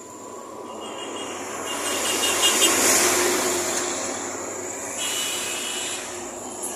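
A vehicle passing close by. Its noise swells to a peak about three seconds in, then fades away.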